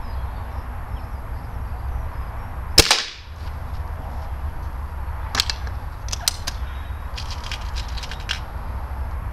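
Crosman Nitro Venom .22 gas-ram air rifle firing one sharp shot about three seconds in, followed by a scatter of small clicks as the rifle is handled.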